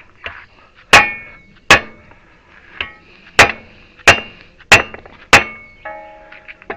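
A hammer strikes metal about eight times, roughly once every two-thirds of a second, each blow ringing briefly. It is tapping a tight-fitting Honda Fit front wheel bearing into its housing a little at a time.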